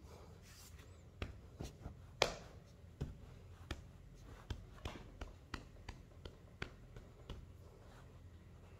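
A series of light, sharp clicks and taps, about one or two a second, the loudest a little after two seconds in, dying away near the end.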